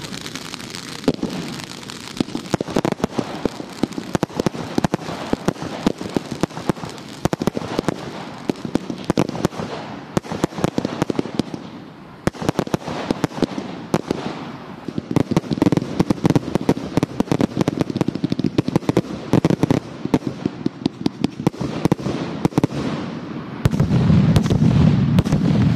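Fireworks crackling and popping in rapid, uneven volleys of sharp reports, with red flares burning. Near the end a louder rushing blast comes in as a firework fountain shoots sparks upward.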